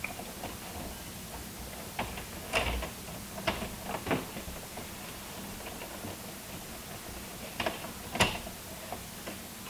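Scattered clicks, taps and rustles of electrical wires and a wire nut being handled and pushed into place inside a household breaker panel, the sharpest click near the end.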